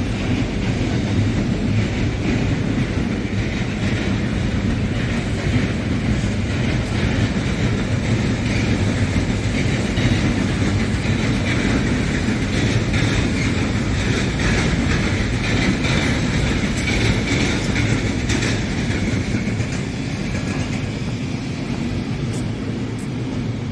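Mat '64 electric multiple unit train running along the track with a steady rumble, and a run of wheel clicks over rail joints in the middle.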